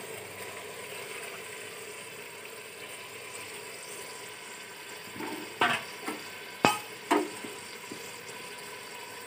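Pieces of goat meat sizzling gently in hot oil and ghee in a pressure cooker pot. About halfway through come a few sharp knocks and clatters against the pot.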